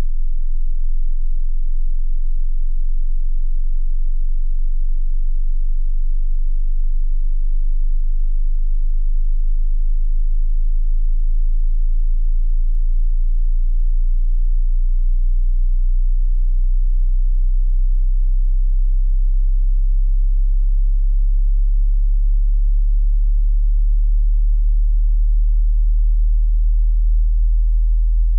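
A pure sine test tone at a very deep bass pitch, below about 60 Hz, held steady and loud while its frequency creeps slowly upward: the low end of a hearing-test sweep from bass to treble.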